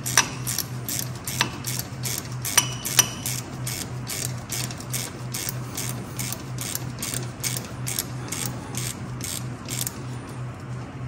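Hand ratchet clicking as it is swung back and forth, tightening a brake caliper bolt: a steady run of clicks about three a second, with a few sharper metal clicks in the first three seconds.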